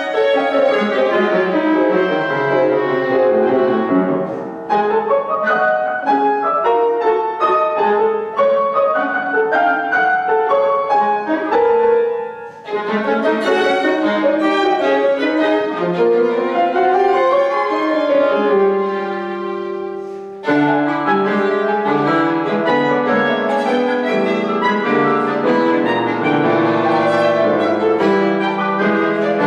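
Clarinet, violin and grand piano trio playing classical chamber music live, with dense overlapping notes. The music breaks off briefly a few times, thins out near two-thirds of the way, then all three come back in together.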